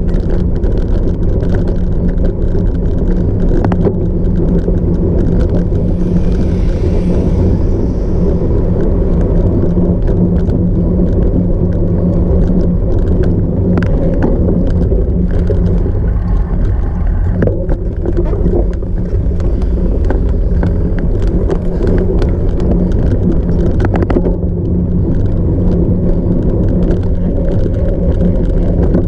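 Cyclocross bike ridden at race pace over rough off-road ground: a steady loud rumble of tyres and wind on the microphone, broken by frequent short clicks and rattles from the bike.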